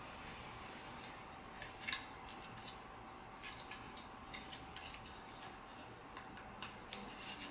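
Plastic support material being peeled and snapped off a freshly 3D-printed part by hand: a soft scraping hiss at first, then faint, irregular small clicks and crackles. A faint steady hum runs underneath.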